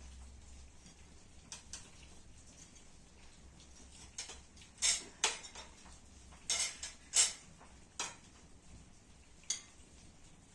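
Cutlery and dishes clinking: a run of separate sharp clinks and taps, thickest and loudest from about four to eight seconds in.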